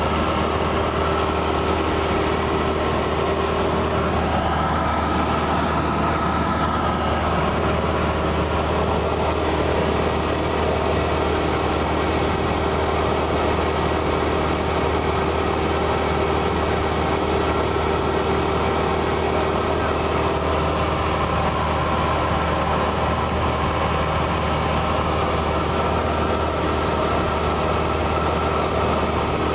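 Cessna 172S's four-cylinder Lycoming IO-360 engine and propeller droning steadily in cruise-approach flight, heard inside the cockpit.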